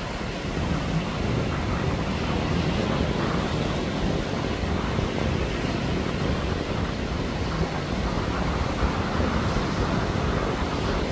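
Small sea waves breaking and washing up the sand, a steady rush, with wind buffeting the microphone.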